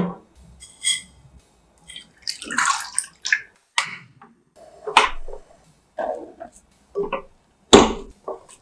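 Close-up cooking sounds in a white ceramic saucepan: short knocks and taps as butter and utensils meet the pan, a brief splash of milk going in, and a silicone spatula working flour in the pan. The loudest knock comes near the end.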